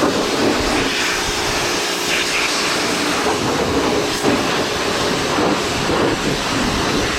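Pressure washer running and spraying, a loud steady rush of water with an even mechanical hum beneath it.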